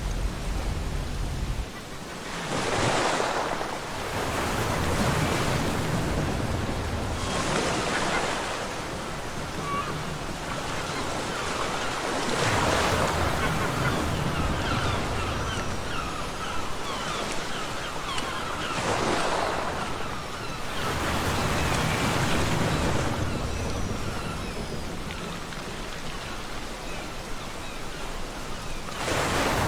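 Ocean surf on a beach: waves break in a surge about every four to six seconds, with a steady wash of water between them.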